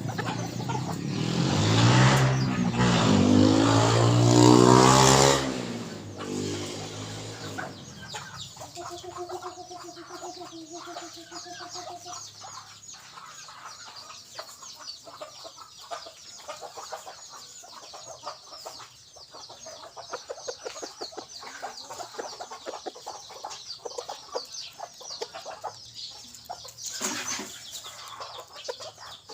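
A motor vehicle passes loudly in the first six seconds, its engine pitch sweeping as it goes by. Then a junglefowl calls: a long held call about nine to twelve seconds in, followed by repeated short clucks.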